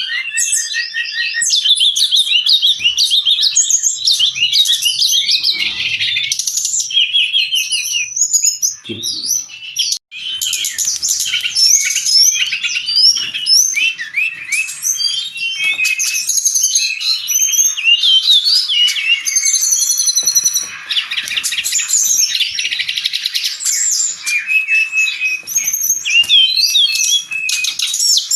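Brown-chested jungle flycatcher in full song: a dense, unbroken run of quick chirps, trills and whistled slides, high in pitch. There is a short break about ten seconds in.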